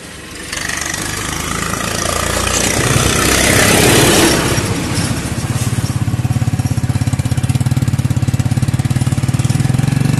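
Motorcycle engine pulling away, its sound rising to a peak about four seconds in, then running with a steady pulsing beat as the bike is ridden along.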